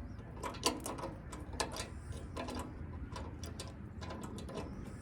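Scattered light metallic clicks and ticks of a screw being started by hand into the sheet-metal control panel of a gas grill, with small scrapes of metal on metal.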